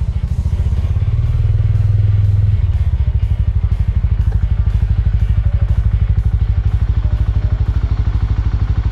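Small motorcycle's engine running at low speed as the bike rolls slowly, a steady low pulsing that swells a little about a second in and then settles.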